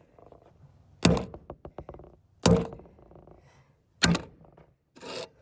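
Three heavy thunks about a second and a half apart as a computer mouse is struck, each followed by a short light clatter, and a brief rattle near the end.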